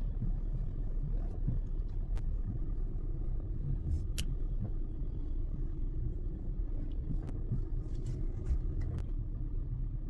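Hyundai i30 idling, heard from inside the cabin as a steady low rumble, while the steering wheel is turned back and forth with no clunk from the steering: the crushed rubber spider bushing in the steering column coupling has been replaced. A few faint light clicks come through now and then.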